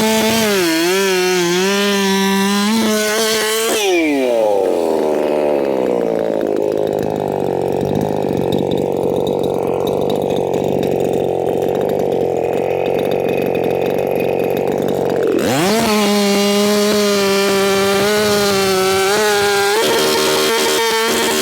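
Two-stroke chainsaw held at full throttle, dropping back to a lower engine speed about four seconds in, then revved back up to full throttle about fifteen seconds in and held there.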